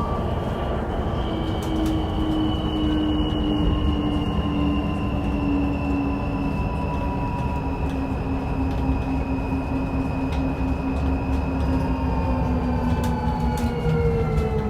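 BYD K11U electric bus's drive whining over a low rumble: several thin tones that fall slowly and steadily in pitch. The uploader takes the weird sound as a sign that something is broken.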